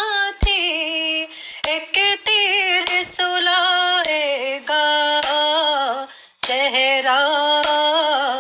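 A woman singing a noha (Urdu lament) solo and unaccompanied, in long, held, ornamented phrases broken by short pauses for breath. A few sharp knocks fall between the phrases, the strongest about half a second in.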